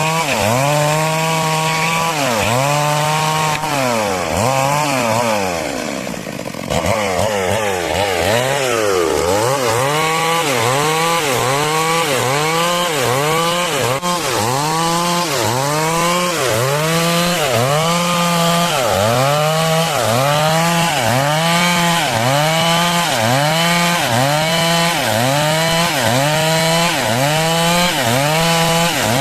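Stihl MS 382 two-stroke chainsaw cutting wood at high revs, its engine pitch dipping under load and recovering about once a second, with a short quieter dip about six seconds in.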